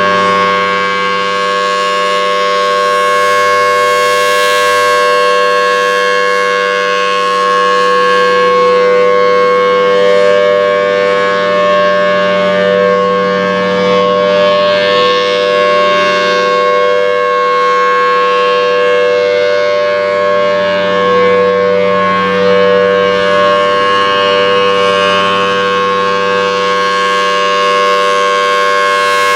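A Federal Signal Thunderbolt 1000T rotating outdoor warning siren sounding its steady Alert signal during a test. It holds one unchanging pitch, loud, and swells and fades gently as the horn turns.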